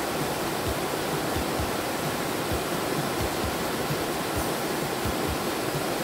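A wide, low waterfall rushing steadily as it pours over rock ledges into a pool.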